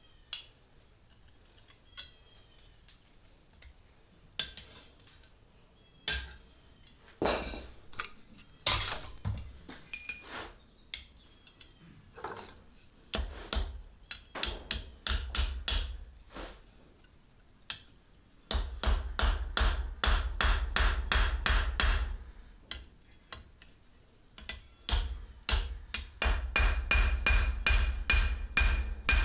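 Hand hammer striking hot steel on an anvil: a few separate blows at first, then runs of rapid strikes, with the anvil ringing after the later blows.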